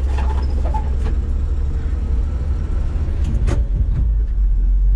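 Inside the cab of a 1970 Chevy C10 with a straight-six engine, driving slowly: a steady low rumble of the engine and running gear, with a couple of short sharp clicks, the strongest about three and a half seconds in.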